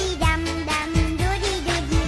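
Upbeat pop song with a sung melody over a steady bass beat.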